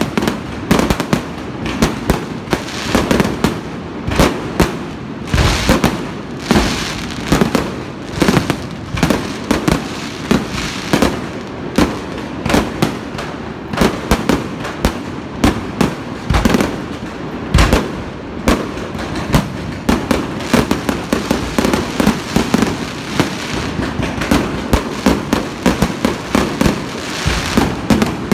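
Aerial fireworks display: a rapid, continuous barrage of shell bursts, booms and crackling bangs, several every second.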